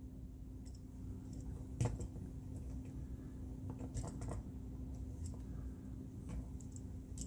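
Handling of a small plastic transforming action figure and its gun accessory: a few light plastic clicks and taps, the sharpest about two seconds in, over a steady low hum.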